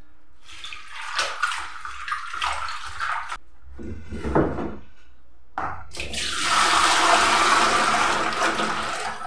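Leafy greens swished and splashed by hand in a plastic basin of water, then, from about six seconds in, the dirty wash water poured out of the basin into a stainless steel sink in a steady gush that tails off near the end.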